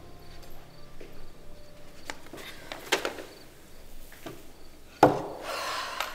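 Scattered wooden knocks and clicks, like things being handled and set down on wood. The loudest comes about five seconds in and is followed by about a second of rustling. Faint cricket chirps repeat in the background.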